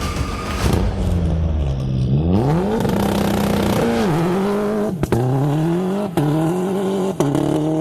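Rally car engine pulling hard. Its note drops for the first couple of seconds, then climbs again and again, breaking off sharply at each upshift, with several quick gear changes in the second half.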